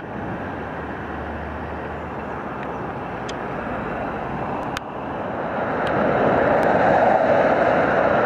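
Road traffic: a heavy truck fading into the distance, then the steady, louder noise of motorway traffic, which rises from about five seconds in.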